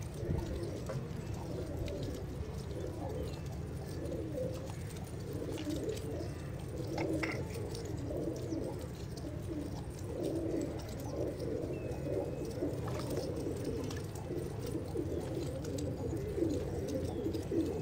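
A flock of domestic pigeons cooing, many coos overlapping continuously, with a few short clicks among them.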